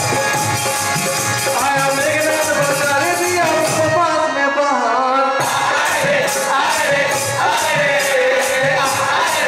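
Live Fiji Hindu kirtan music: male voices singing with harmonium, dholak and octopad, and small hand cymbals keeping a steady beat. The cymbals drop out for about a second near the middle, then come back in.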